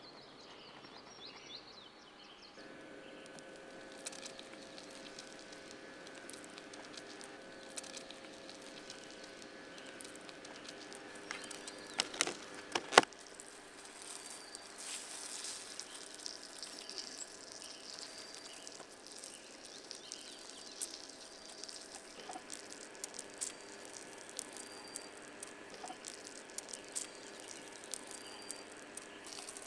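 Bread buns frying in a little oil in a steel pan: a faint sizzle, with metal tongs clicking and tapping on the pan, sharpest a little before halfway. A short high chirp repeats about once a second in the background through the second half.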